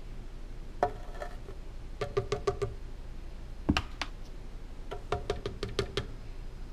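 Plastic measuring scoop tapped against the rim of a plastic blender jar to knock protein powder out: quick runs of light taps with a short ringing pitch, and one duller thump about halfway through.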